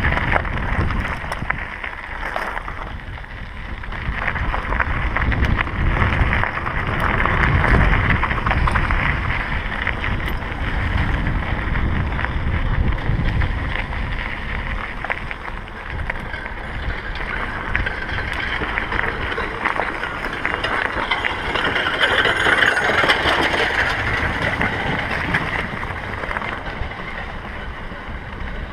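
Mountain bike rolling fast downhill on a loose gravel track, its tyres crunching over stones with a constant rattle of small knocks. Wind buffets the camera microphone throughout.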